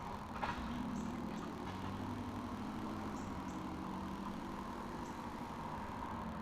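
A steady low engine hum, with a click about half a second in.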